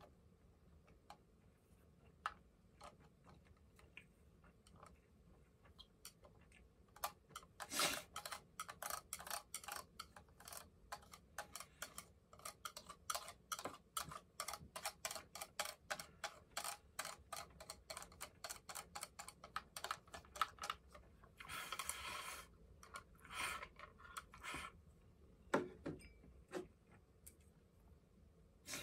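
Chopsticks tapping and scraping against a plastic food container: long runs of quick, light clicks, a short scraping noise about three-quarters of the way through, and a single louder knock a little later.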